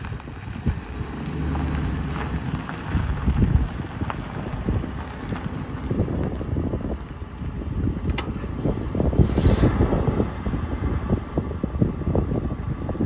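Gusty wind buffeting the microphone, with the low hum of a Ford F-350's 5.4L Triton V8 idling underneath, clearest a second or two in.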